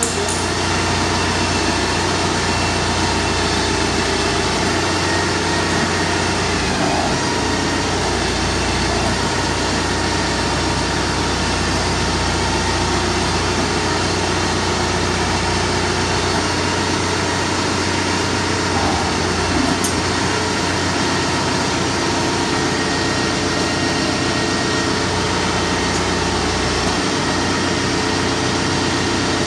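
Compact tractor engine running steadily at low speed as the tractor reverses slowly.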